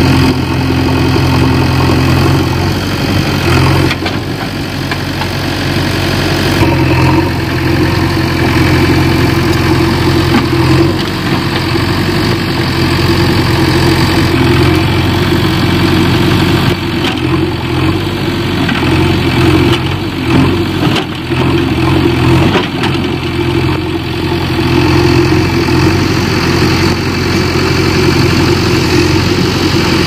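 JCB 3DX backhoe loader's diesel engine running steadily, its note shifting up and down several times under the load of the hydraulics as the bucket and backhoe arm lever the machine out of the field.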